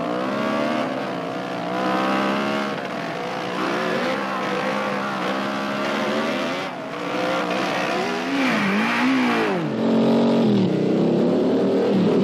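1974 Maico MC 400 two-stroke dirt bike engine revving up and down repeatedly, its pitch falling and climbing again more than once, getting louder near the end as the bike moves off.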